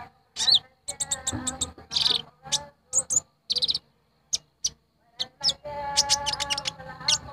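Kolibri ninja sunbird call played as a lure: a rapid series of sharp, high, metallic chirps and short trills with gaps between them. Under it, a sustained chanting voice, most plainly in the second half.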